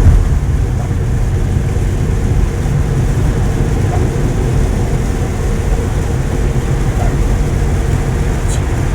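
Steady low road and tyre rumble heard inside the cabin of a Tesla Model 3 driving on a rain-soaked highway. As an electric car it gives no engine note.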